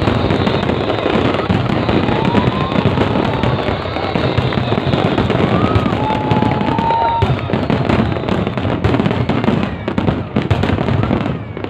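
Large New Year fireworks display: a dense, continuous barrage of bangs and crackles, with a few short whistles through the middle, over the noise of the crowd.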